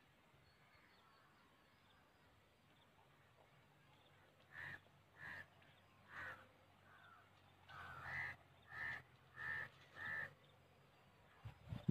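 A crow cawing: a series of about seven short, harsh caws starting about four and a half seconds in, spaced roughly half a second to a second apart.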